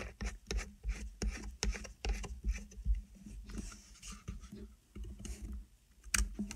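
A vape tank and mod being handled by hand: a run of quick light clicks and scrapes of small metal parts, thinning out about halfway, then one sharp click near the end.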